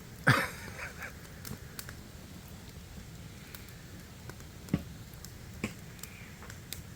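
Campfire wood crackling, with scattered sharp pops every second or so and one louder burst just after the start.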